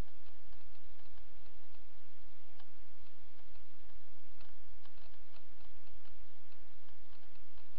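Steady low hum and hiss with faint, irregular clicks scattered through it.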